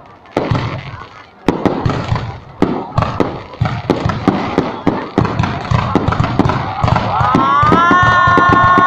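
Fireworks going off in a series of sharp bangs, a few at first and then coming thick and fast. Near the end a pitched whistling tone rises and then holds steady over the bangs.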